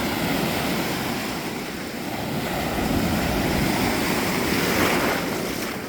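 Steady rushing noise of wind on the microphone over open water, swelling slightly a few seconds in.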